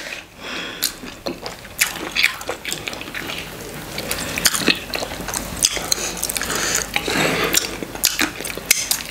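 Wet mouth sounds of a person eating with the fingers: irregular lip smacks, sucking and chewing on a last scrap of food.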